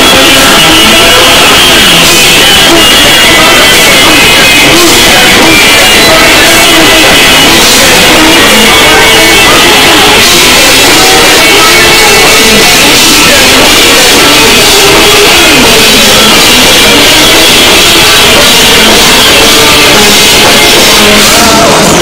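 Live rock band playing loud, with electric guitar and drum kit.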